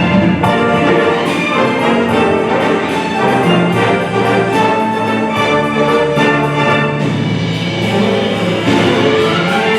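Symphony orchestra playing: strings, brass and timpani together in a full, steady passage.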